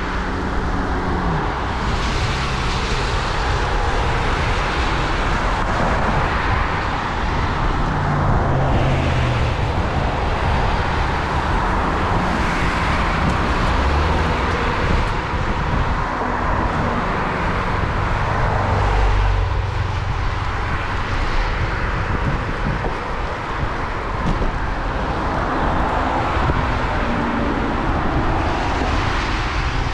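Road traffic going by a moving bicycle on a wet road: a steady rush of passing cars and tyre hiss that swells and fades several times, over a constant low rumble.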